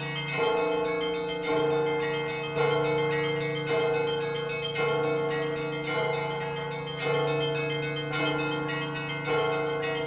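Easter ringing of Orthodox church bells: a bell struck evenly about once a second, each stroke ringing on into the next, over a deep steady hum and a cluster of higher bell tones.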